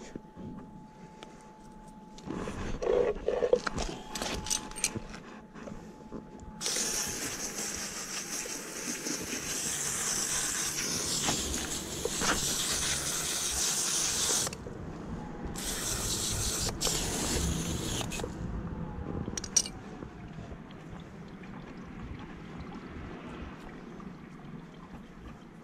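Water spraying from a hose-fed brush nozzle while a softshell turtle's underside is scrubbed. Scratchy scrubbing about two seconds in gives way to a steady water hiss that runs for about eight seconds, breaks off briefly, runs a few seconds more and stops.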